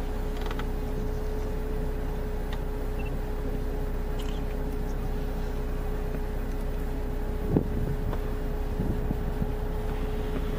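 Steady low rumble of an idling vehicle engine with a constant hum over it, and one short knock about seven and a half seconds in.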